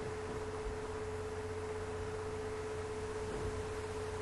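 A steady single-pitched tone, like an electrical whine, over faint hiss and low hum, unchanging throughout.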